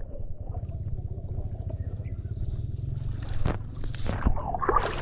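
Shallow muddy water sloshing and splashing as wet hands pull a fish out of a cast net, over a steady low rumble. A few sharper splashes come in the second half.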